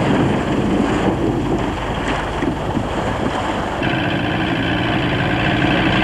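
Wind and water noise around an inflatable boat, then about two-thirds of the way in a switch to an outboard motor running steadily as the boat moves through choppy water.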